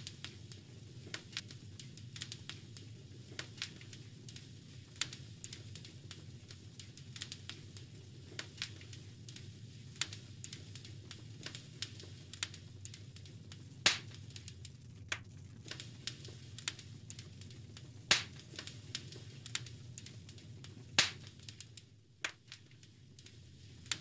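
Fire crackling in a fireplace: irregular sharp snaps and pops over a low steady rumble of the flames, with three louder pops in the second half.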